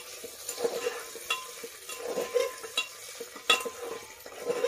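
A spoon stirring potato and cauliflower pieces frying in oil in an aluminium pressure cooker, clinking and scraping against the pot at irregular intervals over a faint sizzle. The sharpest clink comes about three and a half seconds in.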